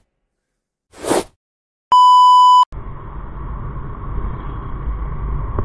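A whoosh sound effect about a second in, then a loud electronic beep, one steady tone lasting under a second. After the beep, steady low road and wind noise of a motorcycle under way takes over.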